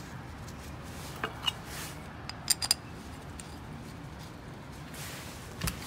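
A few light metallic clicks and taps, mostly in two quick pairs, as a gloved hand handles the screw-on cap of an ATV handlebar throttle housing and its small screws.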